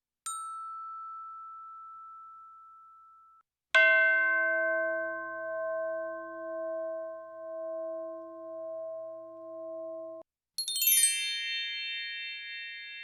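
Three cartoon-style sound effects in a row. First comes a single high ding that rings and fades, then stops short. Then a loud bell-like clang with a deep, wavering ring cuts off after about six seconds, followed by a quick sparkling run of high tinkles that settles into a held shimmering chime.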